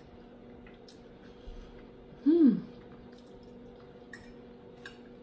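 A woman eating, with one short hummed "mmm" of enjoyment about two seconds in, rising then falling in pitch. Faint clicks of a fork on a plate come and go over a faint steady hum.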